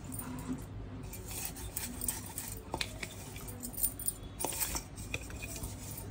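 Stainless steel mixer-grinder jar and steel bowl giving light, scattered metallic clicks and taps as ground powder is scraped and tipped out of the jar into the bowl.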